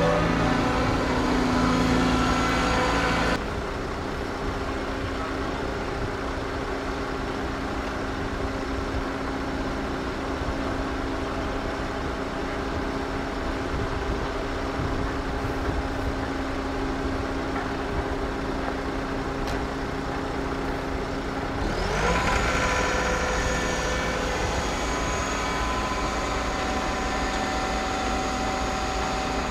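Diesel engines of heavy construction machinery running steadily, first loud from an excavator close by. A few seconds in the sound cuts to a quieter, more distant engine hum, and later an engine revs up with a rising pitch and the hum grows louder.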